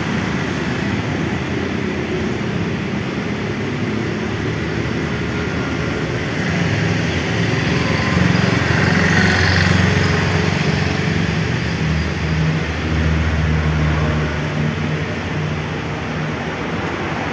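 A motor vehicle engine running steadily over a background wash of noise, growing louder and heavier from about six seconds in and easing off again a few seconds before the end.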